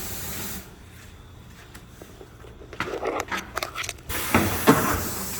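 Compressed air hissing in two bursts, one cutting off about half a second in and another starting about four seconds in, with scattered clicks and short snatches of voice between them.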